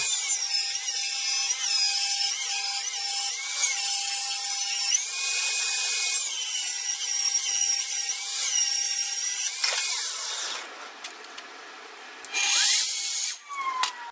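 Table saw with a multimaterial blade ripping a pallet-wood plank lengthwise: the motor's steady whine sags and recovers again and again as the wood feeds through, for about ten seconds. Near the end comes a second short burst of saw noise with a falling whine.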